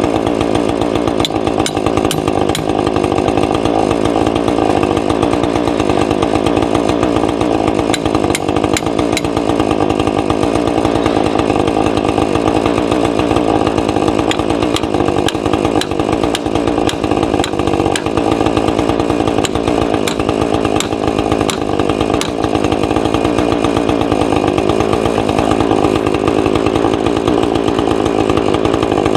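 Small gasoline saw engine running steadily while milling a log into timbers, with a light pitch shift about three-quarters of the way through.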